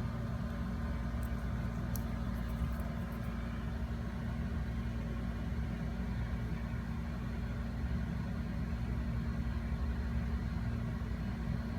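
Steady low background hum, with a few faint clicks about one to two seconds in.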